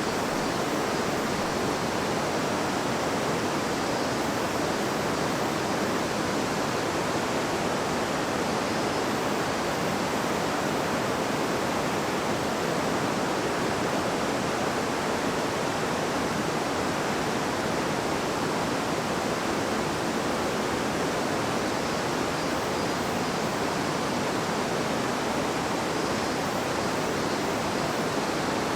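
River water babbling and rushing over stones, a steady even rush that does not change.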